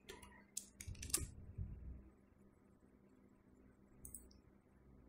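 Faint clicks of a computer keyboard and mouse: a quick cluster of clicks in the first two seconds, then a pair of clicks about four seconds in.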